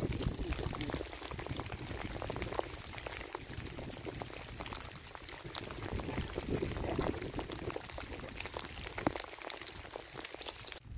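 Rain falling steadily, a dense crackling patter.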